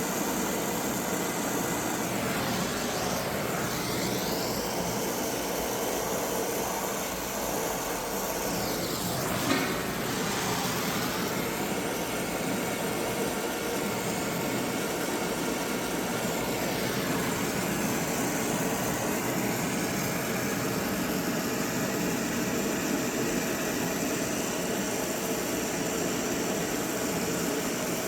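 Brazing torch flame hissing steadily while heating copper pipe and fittings for a braze joint, its tone shifting a few times, with one short tick about nine seconds in.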